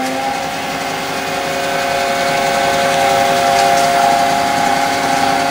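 Homemade CNC lathe running: a steady whine of several tones from the spindle and drive motors, rising slightly in level, with a few of the tones shifting a little partway through.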